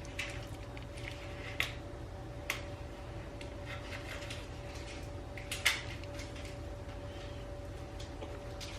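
A few light clicks and knocks of kitchen utensils and dishes being handled, over a steady hum in the room.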